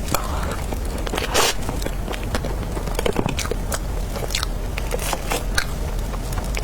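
Close-miked eating: biting and chewing dragon fruit cake, with irregular sharp wet mouth clicks and smacks over a steady low hum.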